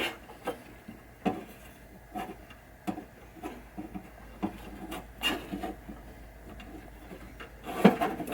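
Hands and a small tool working a fuse holder tight inside a pinball cabinet: irregular small clicks, taps and rubbing, with a sharper knock near the end.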